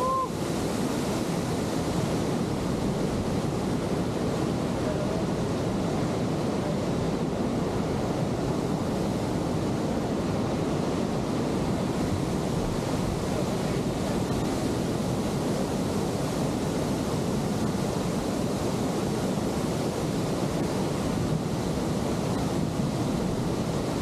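Steady rushing of a waterfall, mixed with wind on the microphone, at an even level throughout.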